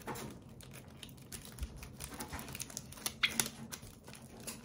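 Plastic wrapper of an Elise wafer biscuit crinkling and crackling as fingers pull it open: a quick run of small crackles, with a louder burst of crinkling about three seconds in.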